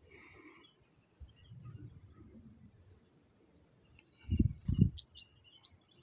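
Steady high-pitched drone of insects, with two dull low thumps a little past four seconds in, followed by a few short sharp clicks.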